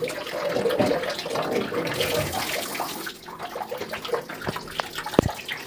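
Hot water running from the outlet tap of a 3-litre electric geyser, a steady splashing stream. A few light knocks near the end.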